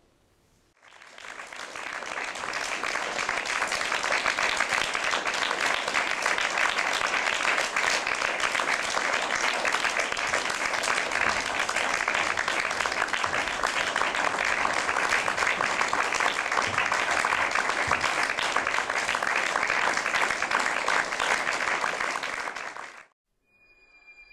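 Theatre audience applauding. The applause builds over the first couple of seconds, holds steady, and cuts off abruptly near the end.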